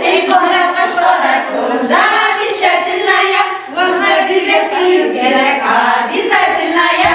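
A group of women's voices singing a folk song together, unaccompanied.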